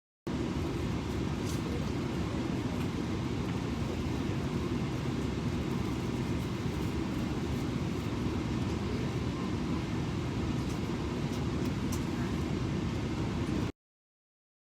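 Steady low rumble of a moving vehicle heard from inside its cabin, even throughout and cut off abruptly near the end.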